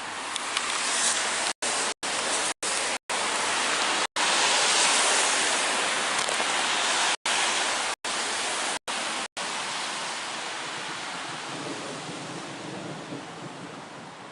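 Rolling thunder: a long rumble that builds over the first few seconds and then slowly dies away. The sound cuts out completely for a split second several times during the loudest part.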